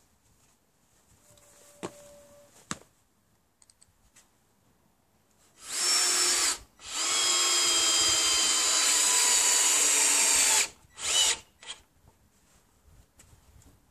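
Cordless drill-driver working into a wooden roof batten in three runs: a short burst, a steady run of about four seconds, then a final short burst. A couple of plastic knocks come about two seconds in, before the drill starts.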